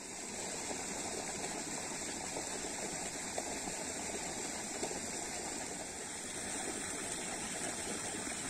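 Steady, even rushing noise with a thin high hiss running through it, like a flowing stream.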